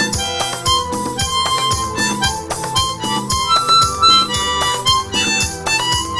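Harmonica playing the melody of a Bollywood song, amplified through a PA over a recorded backing with a steady beat and bass line.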